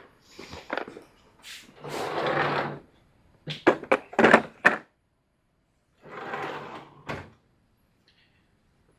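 Tool drawer sliding open and shut, twice, each slide about a second long, with a quick run of sharp clicks and clanks of tools being handled in between.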